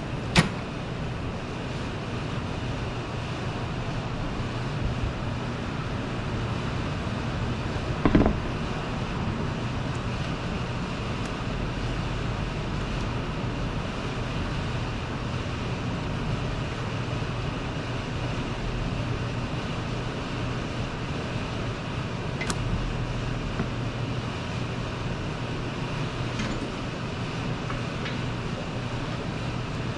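Steady background hum with a sharp metallic click just after the start, a louder clank about eight seconds in, and a few faint clicks later: hand tools working under the car on the drain plug and oil filter during an oil change.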